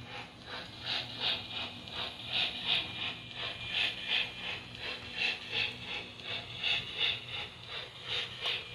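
HO scale model of a South Australian Railways F class steam locomotive running slowly: a tinny, rhythmic chuffing of about three beats a second over a steady low hum from its motor and gearing.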